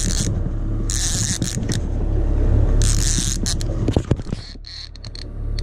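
Conventional salmon reel being cranked against a hooked fish, with short bursts of scraping hiss over a steady low rumble of the boat and wind, and a few sharp knocks about four seconds in.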